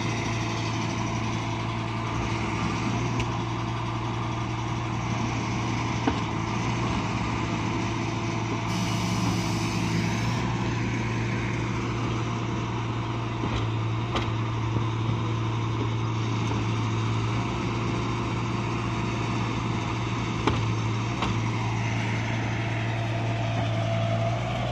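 Mini crawler excavator's small diesel engine running steadily as the machine tracks and works, with a few short knocks.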